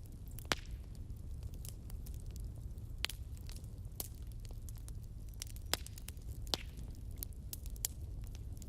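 Wood fire burning in a fireplace: irregular sharp crackles and pops from the logs over a low, steady rumble of the flames.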